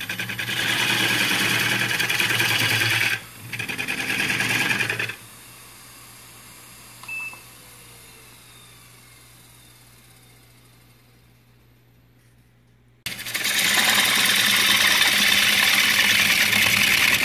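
Wood lathe turning a poplar blank, a gouge cutting with a steady shaving noise over a low motor hum. The cutting stops about 5 s in, leaving only a faint hum for several seconds, and starts again loud about 13 s in. On this wood the cut is described as quiet compared with dry Osage orange.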